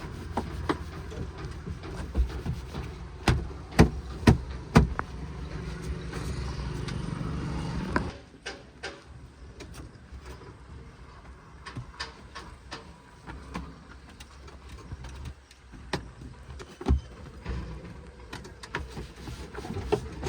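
Heavy earth-moving machinery running with a steady low engine hum and several sharp knocks and clanks. About eight seconds in the engine sound drops away abruptly, leaving a quieter background with scattered clicks and knocks.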